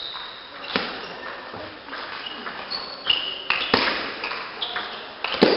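Table tennis rally: the ball clicking sharply off the bats and table, with the hardest hits about a second in, just before four seconds, and near the end.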